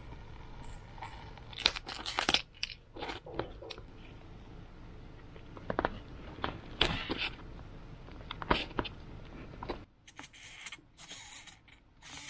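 Hobby-knife blade cutting a servo slot in EPP foam, and the micro servo being pressed into the foam: irregular short scrapes and crunches, several in a row.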